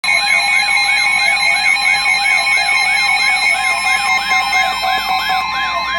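NOAA Weather Radio warning alarm: a steady, loud 1050 Hz alert tone with a warbling siren-like alarm sweeping up and down about two and a half times a second over it. The alarm signals that a warning broadcast, here a severe thunderstorm warning, is about to follow.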